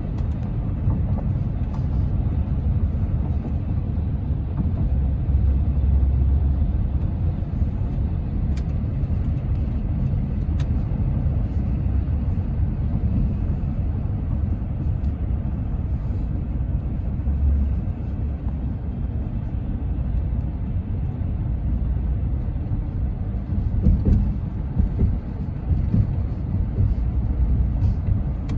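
Road noise of a moving car heard from inside the cabin: a steady low rumble of tyres and engine, swelling slightly about five and twenty-four seconds in.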